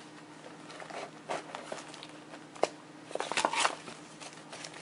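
Clear plastic sleeve around a packaged instruction manual crinkling and rustling as it is handled, in a series of short crackles with one sharp tick a little over two and a half seconds in. The crinkling is loudest a little past three seconds in.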